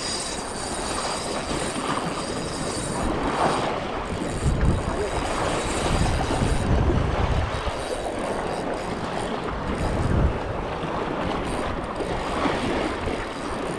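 Wind buffeting the microphone in gusts over the steady wash of sea waves against rocks.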